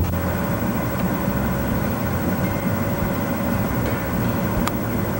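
Vehicle engine idling steadily as a low rumble, heard from inside the vehicle, with one light click near the end.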